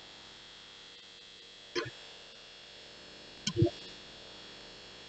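Low steady microphone background hiss with a faint steady high whine, broken by two brief soft sounds, one about two seconds in and another about a second and a half later.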